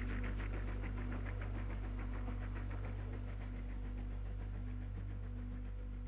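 Exhaust beats of an SNCF 141 R Mikado steam locomotive working along the line: a rapid, even chuffing that fades away over the first few seconds, over a steady low hum.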